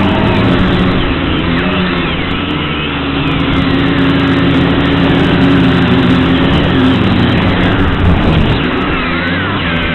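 Brushless motors of an XK X250 racing quadcopter whining in flight, the pitch wavering up and down as the throttle changes.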